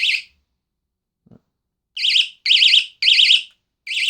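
Battery-powered electronic bicycle horn rated at 90 decibels, sounded in loud bursts of a rapidly warbling siren tone: one short blip at the start, then about two seconds in four quick blasts about half a second apart.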